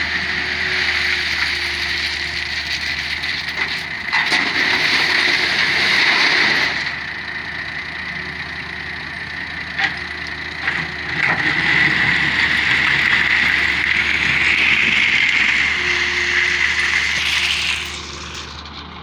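Excavator running: a steady whining machine noise with a few sharp clacks. It drops in level about seven seconds in and picks up again a few seconds later.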